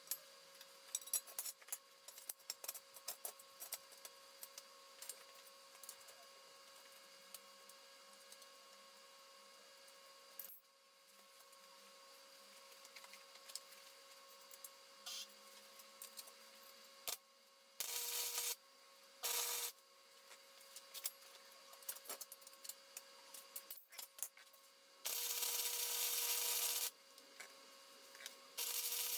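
Flux-core wire welder laying short tack welds on steel angle iron: four bursts of loud, even crackling hiss in the second half, the longest nearly two seconds. Between them, scattered small clicks and scraping on the metal.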